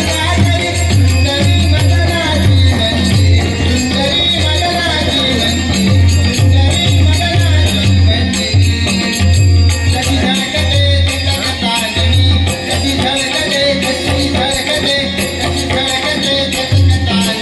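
Live Malvani Dashavatar folk-theatre music: a drum beats a steady, repeating rhythm under a wavering melody line, with a constant jingling of hand percussion on top.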